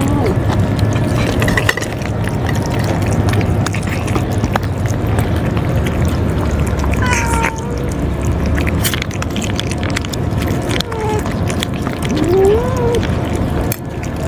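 Stray cats meowing to be fed: a few separate calls, one about halfway through and a rising-then-falling one near the end, over a steady low rumble.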